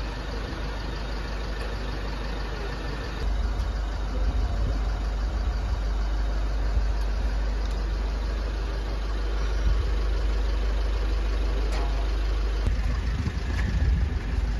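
Pickup truck engine idling, a steady low rumble that gets louder about three seconds in.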